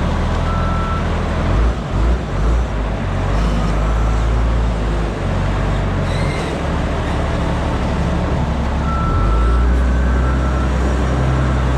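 Komatsu 450 wheel loader's diesel engine working, rising and easing off, with its backup alarm beeping in short, evenly spaced beeps near the start and again near the end as it reverses.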